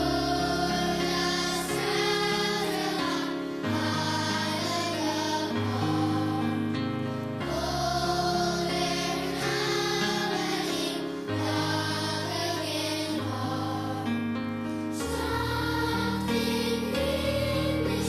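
A choir singing a slow Christmas song over instrumental accompaniment, holding long chords that change every few seconds above a sustained bass line.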